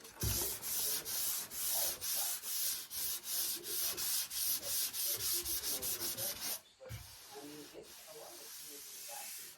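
Fine-grit (320–400) sandpaper being rubbed back and forth over cured Bondo body filler on a pickup's steel bed side, smoothing out the coarser 80-grit scratches. The quick, even strokes come about four a second, then stop after about six and a half seconds, giving way to a fainter, steadier rubbing.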